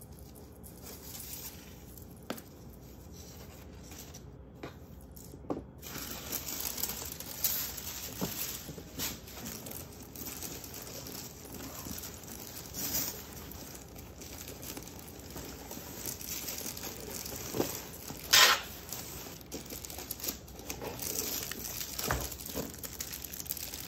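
Paper and plastic packaging rustling and crinkling as a handbag in a cloth dust bag is lifted out of a paper shopping bag and unwrapped. Irregular crackles run throughout, the loudest about 18 seconds in.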